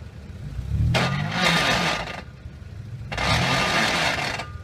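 A 4x4 SUV's engine revving hard twice, about a second in and again near three seconds, rising in pitch each time, with its tyres spinning and spraying loose dirt on a steep climb.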